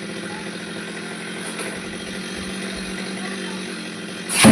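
A small engine running steadily with an even hum, and a sharp, loud thud near the end.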